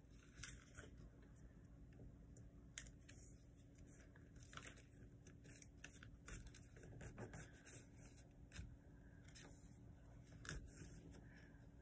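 Faint crinkling, rustling and small clicks of a sheet of paper being folded and creased by hand.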